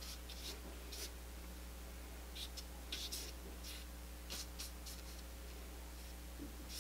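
Flat bristle brush loaded with oil paint being stroked across paper: a dozen or so short brushing swishes, some in quick pairs, over a faint steady hum.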